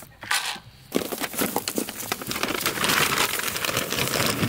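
Plastic bag of dry dog food crinkling as it is handled, a dense run of crackles starting about a second in, just after a knock as a steel dog bowl is set down on the ground.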